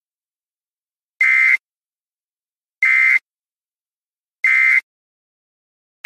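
Electronic alert tone from a severe-weather warning web page: three short, identical buzzing beeps about 1.6 seconds apart, with silence between, signalling a new severe thunderstorm warning.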